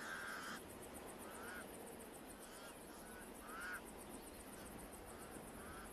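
Pied crows calling: about five short caws spaced roughly a second apart, the first the longest and loudest.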